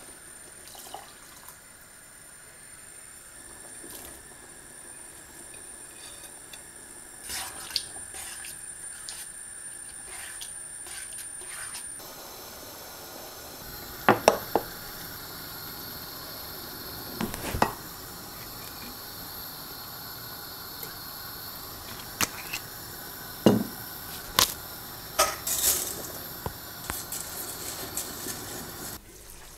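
Water being added to a pan of beef and tomato sauce with a few faint clicks, then a stainless steel pot of boiling water. In the second part several sharp metal clinks of a spoon and tongs against the pot come as salt, oil and spaghetti go in.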